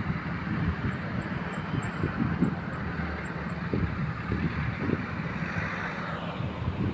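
Outdoor ambience: a steady rushing hiss with irregular low rumbling gusts of wind on the microphone.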